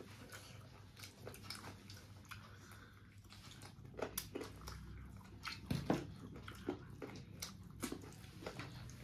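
A person chewing a mouthful of rice and mutton curry, with irregular wet mouth clicks and smacks, a few louder ones midway.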